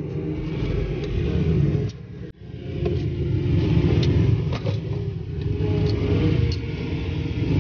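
Low, steady rumble of passing road traffic, cars and motorbikes, which briefly drops away about two seconds in.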